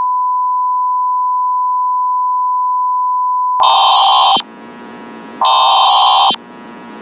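Mock Emergency Alert System alert tones: a loud steady single beep-like tone that cuts off about three and a half seconds in, followed by two harsh buzzing bursts, each under a second long and about two seconds apart.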